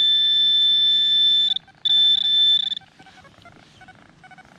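Handheld metal-detecting pinpointer sounding a continuous high-pitched alarm tone as it sits on a metal target in the hole. The tone breaks off about one and a half seconds in, sounds again briefly, then gives way to fainter, rapid beeping near the end.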